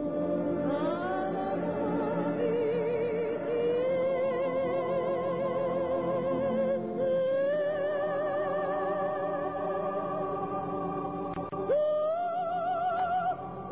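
Female soprano voice singing long held notes with a wide vibrato over instrumental accompaniment. The pitch steps up about halfway through, then swoops up to a higher held note near the end.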